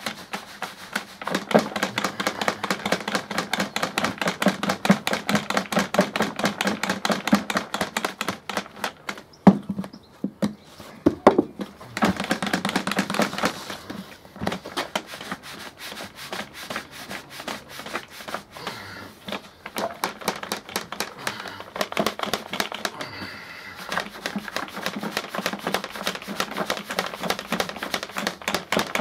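A lidded plastic bucket of dry boilie base-mix powder being shaken hard by hand, with the powder and lid rattling in quick repeated strokes to blend the dry ingredients. The shaking stops briefly a few times and then resumes.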